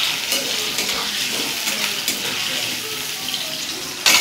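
Paneer cubes frying in hot oil in a kadai: a steady sizzle with many small crackling pops. A single loud knock near the end.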